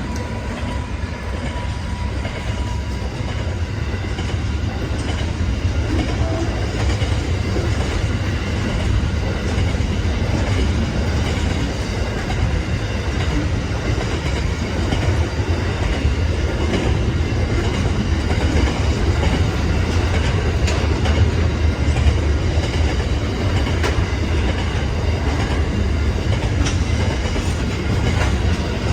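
Long freight train rolling past close by, with a steady heavy rumble and the clickety-clack of wagon wheels over the rail joints. A faint high tone fades away in the first few seconds.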